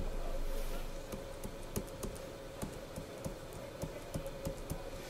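Faint, irregular clicks and taps of a stylus writing on a tablet screen, over a steady faint electrical hum.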